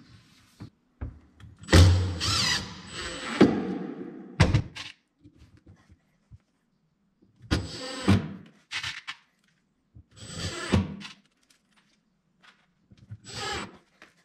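Cordless drill/driver driving screws at a cabinet door's concealed hinge in several short bursts, with knocks from the door and board being handled between them.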